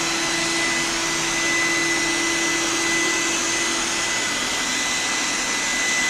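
HVLP paint sprayer spraying lacquer: a steady rush of air with a constant whine underneath.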